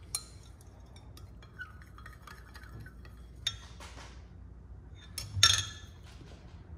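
Metal spoon stirring liquid plastisol in a glass measuring cup, with light scattered clinks against the glass and one louder ringing clink about five and a half seconds in.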